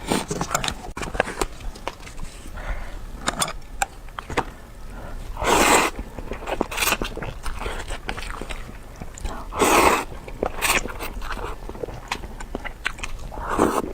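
Close-miked eating of noodles: wet chewing and small mouth clicks throughout, with three louder half-second slurps at about six, ten and thirteen and a half seconds in.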